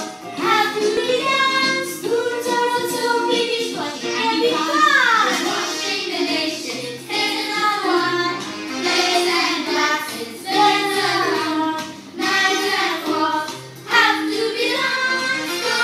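Children singing a song with musical accompaniment, the voices sliding in pitch at one point about five seconds in.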